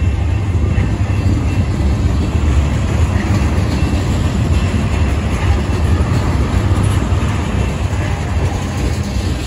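Freight train's tank cars and boxcars rolling past close by: a loud, steady rumble and rattle of steel wheels on the rails.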